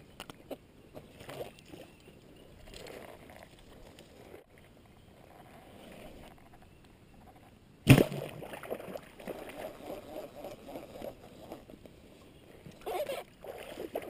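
Sloshing steps wading through shallow muddy water, broken about eight seconds in by a single sharp snap of a bowfishing compound bow being shot, the loudest sound here, and then more wading.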